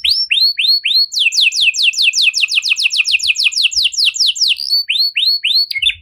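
Canary singing a string of quick downward-sliding notes, about four a second, that speeds up about a second in into a rapid trill of roughly seven notes a second, then slows back to separate notes near the end.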